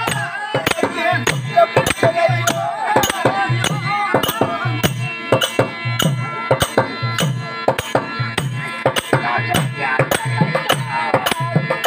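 Therukoothu accompaniment: a laced barrel drum beats deep strokes a little more than once a second under sharp, regular clicking percussion, while a harmonium holds sustained notes. A man's voice rises and falls over the first few seconds.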